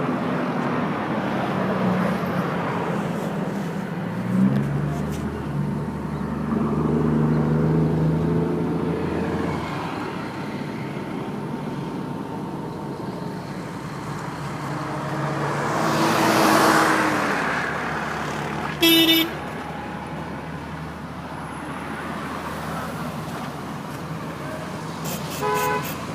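Road traffic going by: motor vehicle engines running past, one swelling loudly as it passes close about two-thirds of the way through. A short car horn toot sounds about three-quarters of the way through, and a brief honk comes near the end.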